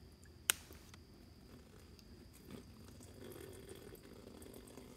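Water poured from a plastic bottle splashing faintly into a steel chip pan, with a single sharp click about half a second in.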